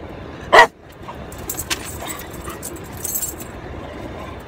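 A dog barks once, short and loud, about half a second in, then faint rustling and clinking of things being handled inside the car.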